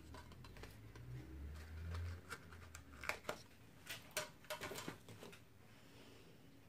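Faint clicks and crackles of a clear plastic display case being opened and a vape dripper atomiser taken out and handled, thickest from about three to five seconds in, with a low handling rumble in the first two seconds.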